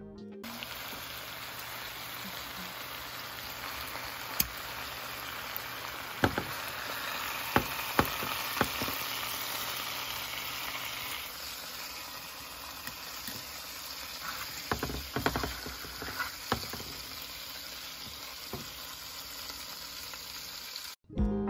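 Pork chops frying in a pan, the glaze sizzling steadily, with a dozen or so sharp clicks of tongs against the pan as the chops are turned and lifted out.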